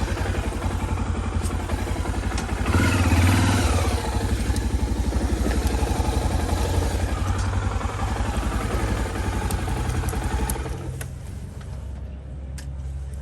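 Motorcycle engine running with an even, fast pulsing beat. It surges louder for about a second, roughly three seconds in, then drops away about eleven seconds in, leaving a low hum and a few clicks.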